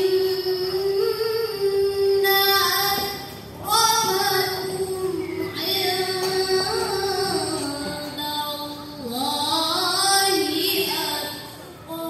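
A girl chanting Qur'anic recitation in the melodic tilawah style: long held notes with ornamented turns, sung in phrases with a breath about three and a half seconds in and another near the end.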